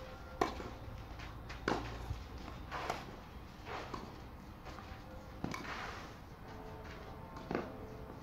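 Tennis rally on a clay court: about six sharp racket-on-ball strikes and bounces, one every second or two.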